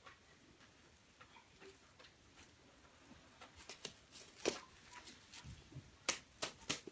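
Kittens playing: a scattered run of light clicks and taps from paws and claws, starting about halfway in, with the sharpest tap about two-thirds through and a quick cluster near the end.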